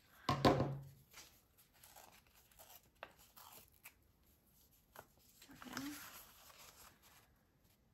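Paper being torn by hand: a short rip about half a second in, then quieter small tears and rustling as the ragged edge is worked.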